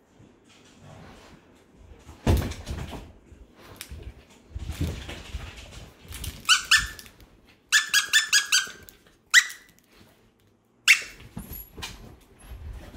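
Plush duck squeaky dog toy being squeezed: two squeaks, then a quick run of about six, then two single squeaks further apart. Before the squeaks, a couple of low thuds.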